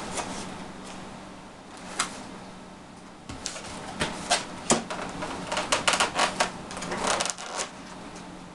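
Sharp clicks, taps and rustles of a model airplane's wing being handled and fitted onto its fuselage. A few single clicks come first, then a dense run of clicks through the second half. A steady low hum runs underneath.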